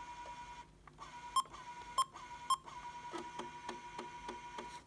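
Sony Mavica MVC-FD91's built-in 3.5-inch floppy drive running with a steady whine as it reads the disk, broken by three short loud beeps from the camera. Near the end the drive clicks about four times a second.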